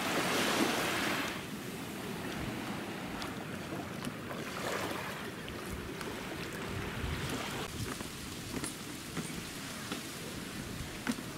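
Small waves washing onto a sandy beach, a louder surge at the start and another about five seconds in.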